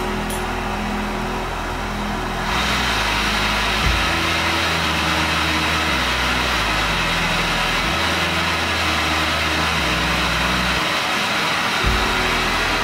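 MSR PocketRocket 2 canister stove burning with a steady gas hiss. It gets louder about two and a half seconds in as the valve is turned to nearly full open, where it is quite loud.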